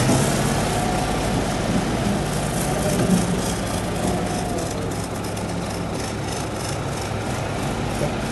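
Compact farm tractor's engine running steadily as the tractor drives off across the yard, a little quieter about halfway through as it gets farther away.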